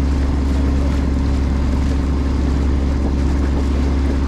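C&C 35 sailboat's inboard engine running steadily under way, a constant low drone.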